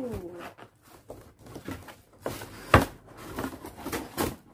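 Cardboard shipping box being handled and pried open by hand: scratching and rustling of the cardboard, with a sharp crack about three seconds in and another near the end.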